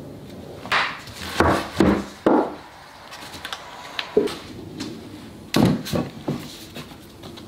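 Glued timber laminations and steel-barred parallel clamps being knocked and shifted on a wooden workbench: a run of wooden knocks and scrapes about a second in, a single click near four seconds, and another cluster of knocks near six seconds.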